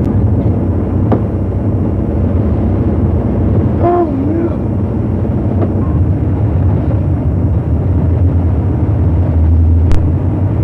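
Bus engine idling with a steady low rumble. A short bit of voice comes through about four seconds in, and there is a sharp click near the end.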